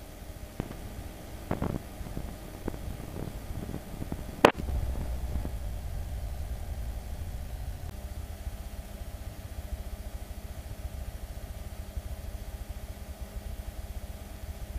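Single-engine light aircraft's piston engine and propeller heard from the cockpit on final approach: a low steady rumble. A few clicks and knocks sound in the first few seconds, the sharpest about four and a half seconds in, after which the rumble is louder, and a steady low hum joins it about eight seconds in.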